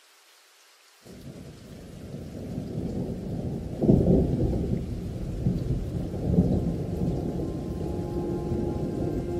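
Thunder rumbling deeply. It starts suddenly about a second in and builds to its loudest clap about four seconds in, then goes on rumbling.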